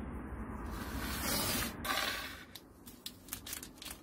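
A hiss lasting about a second, then several light clicks: small steel ball bearings and a packet being set down on a hard work surface.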